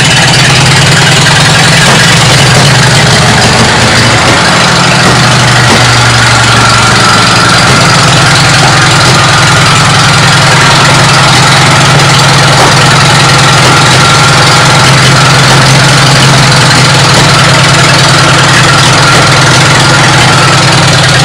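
A car engine running steadily at idle, loud and close.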